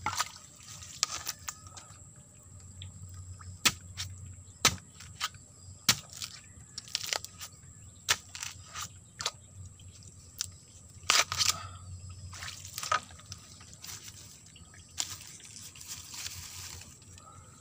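Irregular sharp crackles and snaps of dry bamboo leaves and stems being stepped on and handled while bamboo shoots are being cut.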